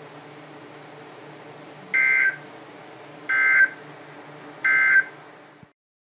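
NOAA Weather Radio SAME digital data bursts from a weather radio receiver's speaker: three short, loud warbling two-tone squawks about a second and a half apart, the end-of-message code that closes a severe thunderstorm warning broadcast. A steady low hiss and hum from the receiver runs under them, and the sound cuts off just before the end.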